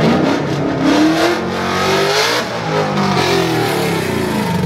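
A car engine revving hard, its pitch sweeping up and back down about twice.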